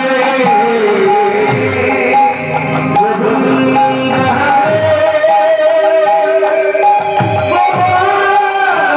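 Live kirtan music played over a PA sound system: an electronic keyboard melody over the strokes of khol barrel drums.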